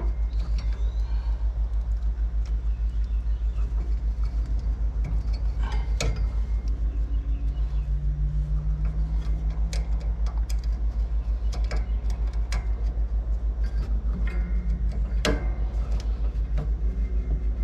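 A steady low throb pulsing evenly at about six beats a second throughout, with scattered sharp clicks and knocks as a wiring connector and mower parts are handled.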